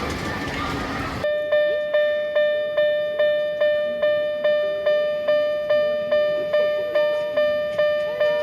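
Level crossing warning alarm ringing, a single pitched ding repeated about twice a second, each strike sharp and fading. It starts abruptly about a second in, after a short stretch of steady noise.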